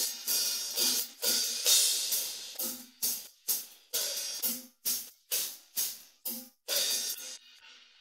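Isolated cymbal track from a rock drum-kit recording. Cymbals ring as a continuous wash for the first couple of seconds, then give way to a run of short, separate cymbal strikes. The strikes die away to faint hits near the end.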